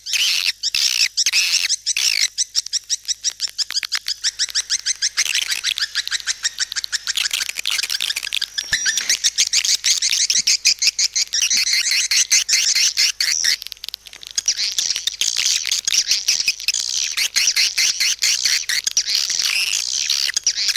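Swiftlet call track: a dense, rapid chittering of swiftlet calls, many chirps a second and high-pitched. It is a lure sound played to draw swiftlets into a nesting house.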